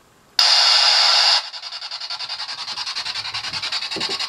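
A spirit box switched on: a sudden loud burst of radio static about half a second in, settling into the device's sweeping static, which chops rapidly and evenly as it scans through radio stations.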